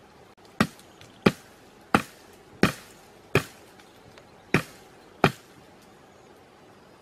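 A heavy blade chopping into a thin green sapling trunk: seven sharp strikes about two-thirds of a second apart, with a short pause before the last two.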